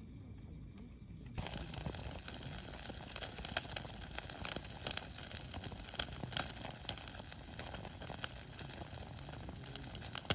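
Dense, irregular crackling and crinkling made of many small clicks, starting suddenly about a second and a half in.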